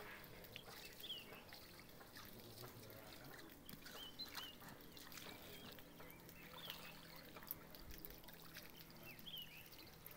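Faint trickle of water from a hose running onto a flooded concrete slab, with short bird chirps every second or two.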